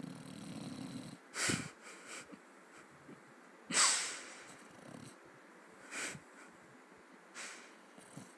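A sleeping pet snoring: a low rumbling breath for about the first second, then four wheezy, hissing breaths about two seconds apart, the loudest about four seconds in.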